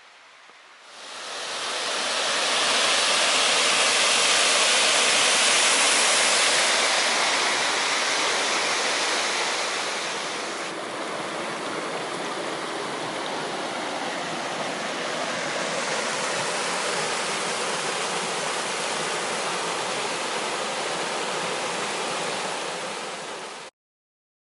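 Hot-spring stream rushing over rocks, a steady loud rush of water. It fades in about a second in, drops a little about ten seconds in, and cuts off suddenly near the end.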